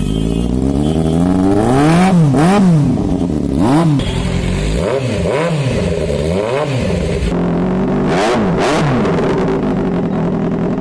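Superbike's inline-four engine idling and revved in short throttle blips, about eight quick rises and falls in pitch, before settling back to idle each time.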